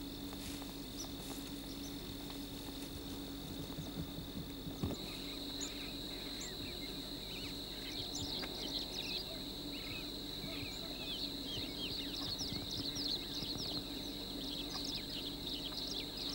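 Grassland ambience: a steady high insect drone throughout. After a sudden click about five seconds in, many short, quick bird chirps join it.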